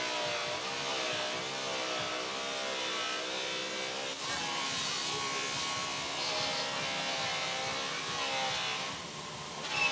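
Electric bench buffer running with a cloth buffing wheel polishing a plastic car headlight lens: a steady motor buzz whose pitch wavers up and down, with a hiss of the buffing, and a short break about four seconds in.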